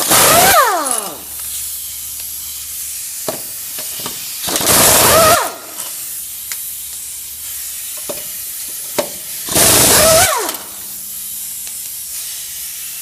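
Impact wrench fired in three short bursts about five seconds apart on the lug nuts of a Ford E350 wheel. Each burst is a loud hissing rattle, and the motor's whine falls away as it spins down after the trigger is released.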